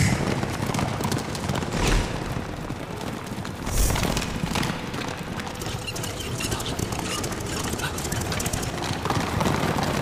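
Many horses galloping together in a cavalry charge, a dense run of hoofbeats, with a couple of heavier thumps about two and four seconds in.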